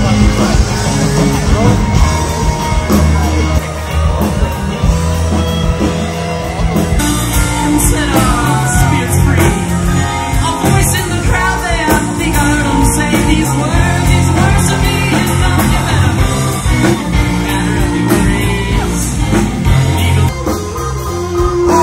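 Rock music with a singing voice, steady and loud throughout.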